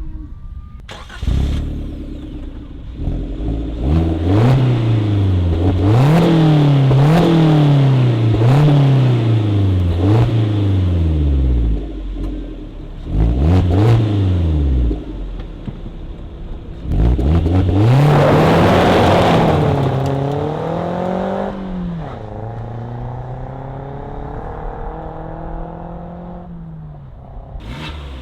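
2021 Suzuki Jimny JB74's 1.5-litre four-cylinder petrol engine, breathing through a Forge Motorsport cat-back exhaust, revved repeatedly. It gives a run of about five quick blips, another short rev, then a longer, higher rev held for a few seconds before it drops back to a steady idle.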